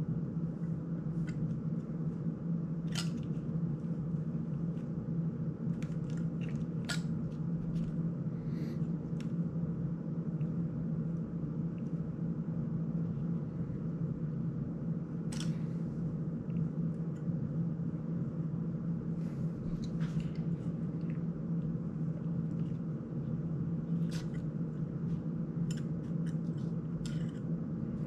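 Scattered light clicks and taps of a GEPRC CineLog 35 cinewhoop drone's plastic frame, ducts and small screws being handled and worked on by hand, over a steady low hum.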